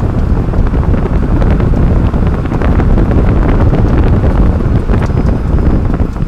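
Heavy wind buffeting and road rumble picked up by a camera mounted under a 30-series Toyota Prius while it is driven, with many small irregular clicks and knocks. The car has an abnormal noise from the left rear whose source the owner has not been able to pin down.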